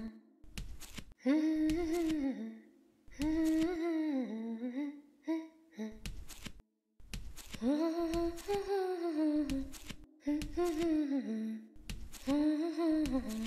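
A voice humming a slow, gliding tune in phrases of a second or two, with short knocks recurring about once or twice a second beneath it.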